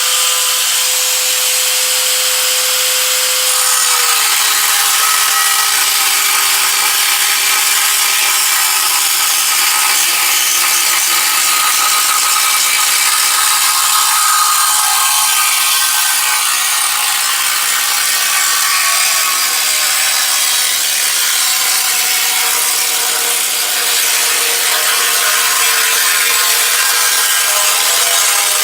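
Power tool cutting through the sheet-steel shell of a Ford ST factory muffler. The motor's whine drops in pitch about four seconds in as the blade bites, then gives way to a steady, loud, hissing cut.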